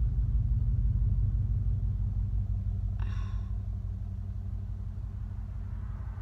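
Steady low rumble heard inside a parked car's cabin, with a brief high-pitched tone about three seconds in.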